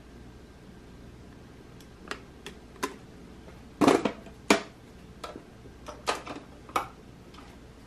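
Sharp clicks and knocks of hard lucite handbags being handled and set down: about nine over five seconds, the loudest a pair of knocks about four seconds in, over quiet room tone.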